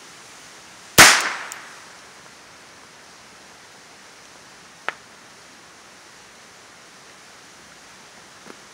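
A single sharp .22 rifle shot about a second in, its report dying away over about a second. A faint click follows about four seconds later.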